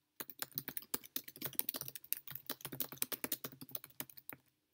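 Typing on a computer keyboard: a quick, steady run of keystrokes. It starts just after the beginning and stops shortly before the end.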